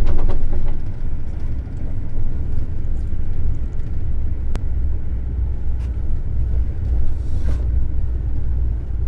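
Steady low rumble of a moving train heard from inside the carriage, with a single sharp click about halfway through.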